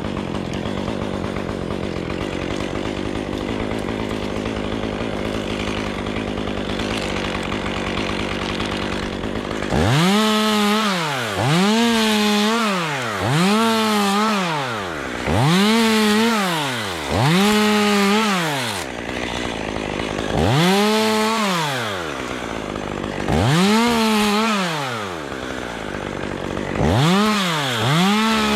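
Chainsaw running steadily under load, then from about ten seconds in revved up and let back down about eight times in a row, each rev a quick rise to full speed, a short hold and a fall back.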